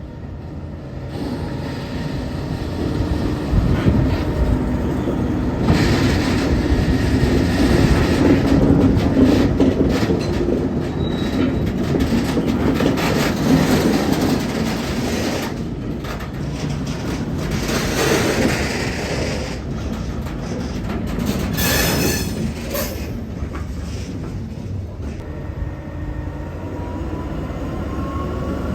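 Freight train wagons rolling along harbour rails in a steady rumble, with a brief high-pitched wheel squeal about two-thirds of the way through.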